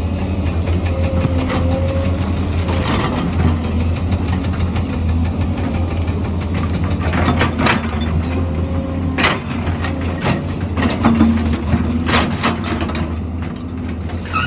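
Excavator's heavy diesel engine running steadily, with several sharp clanks and scrapes of the bucket or tracks on rock and earth.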